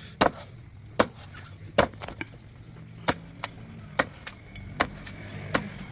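A knife chopping into a coconut's husk and shell, blow after blow: about eight sharp strokes, roughly one every three-quarters of a second.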